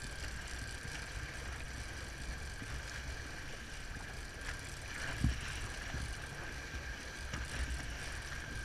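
Outboard motor running steadily with water washing along the hull and wind on the microphone; a single dull thump about five seconds in.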